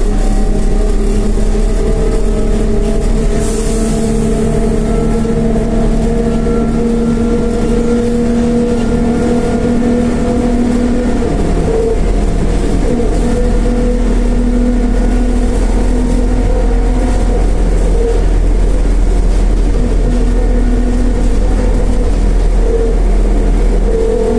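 Škoda 15Tr03/6 trolleybus running, heard from inside the passenger saloon: the electric traction drive's whine, several steady tones that rise and fall gently with speed, over a constant low road rumble. A short hiss about three and a half seconds in.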